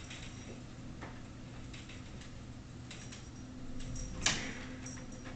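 Light scattered taps and clicks from kittens playing with a wand toy, with one sharper tap about four seconds in, over a faint steady room hum.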